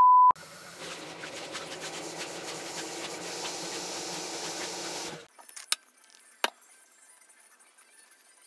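A loud, steady test-card beep stops a moment in. Then water splashes at a bathroom sink for about five seconds as a face is washed by hand, followed by two sharp clicks.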